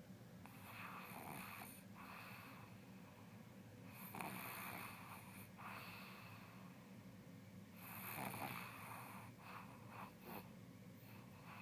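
A person snoring in sleep, faint: three snoring breaths about four seconds apart, each a longer sound followed by a shorter one, with a few short breathy sounds after the third.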